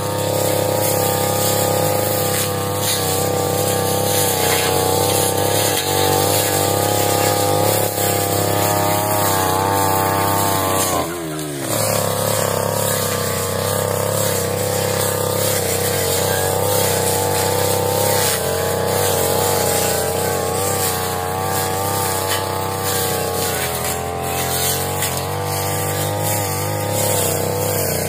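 Brush cutter engine running steadily at high revs. About eleven seconds in the throttle is let off and the pitch drops sharply, then it climbs straight back to full speed.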